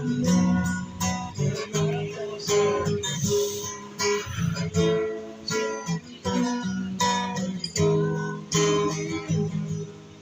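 Inexpensive acoustic guitar strummed through a run of chords, each strum ringing briefly before the next.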